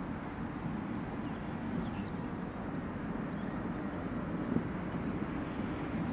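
Airbus A319 airliner on final approach, its jet engines a steady low drone heard from a distance.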